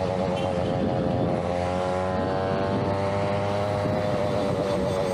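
Small 63cc (71cc) Huasheng two-stroke engine of a Chinaped X5 stand-up scooter running steadily under way at riding speed, a buzzing engine note.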